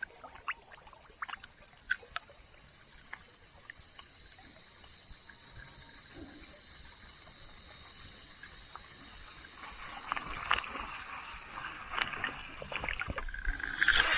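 Water trickling and splashing lightly as a person wades, with scattered small clicks; it gets busier and louder in the last few seconds.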